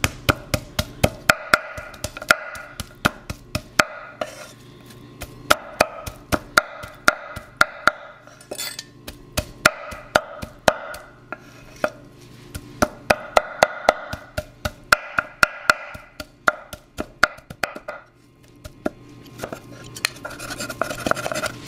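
Steel cleaver chopping grilled steak on a wooden cutting board: rapid, uneven knocks of the blade on the wood, coming in bursts of several chops with short pauses between.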